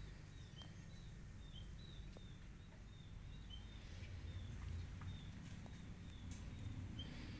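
A small bird calling in a long run of short, high, slightly falling chirps, about three a second, over a low steady rumble.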